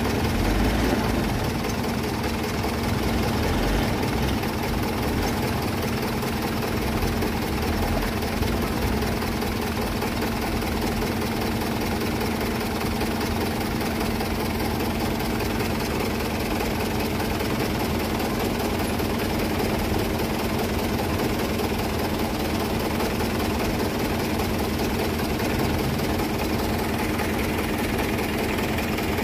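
Diesel engine of an orange Mitsubishi Fuso 6x4 truck (220PS, turbo-intercooled) running steadily at idle, with no revving.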